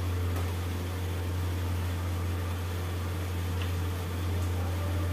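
A steady low hum over the even, faint hiss of khaja dough rounds frying in hot ghee in a steel kadhai, with a couple of light taps from a slotted steel spoon.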